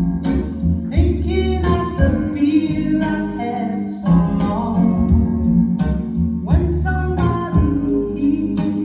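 Music with singing and guitar over heavy bass and a steady beat, played through a home speaker box with a Taramps T-600 10-inch subwoofer and FH-300s 6-inch speakers.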